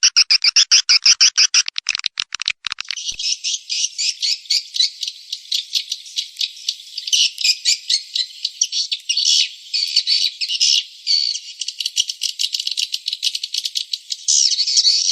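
Swiftlet call recording of the kind played to lure edible-nest swiftlets into a swiftlet house: rapid, dense, high-pitched twittering chirps. About three seconds in, the lower part of the sound drops out, leaving only a thinner, higher twitter.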